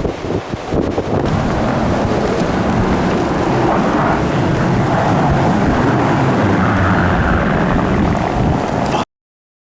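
Blizzard wind blasting across the microphone: gusty in the first second, then a steady, heavy rush. It cuts off suddenly about nine seconds in.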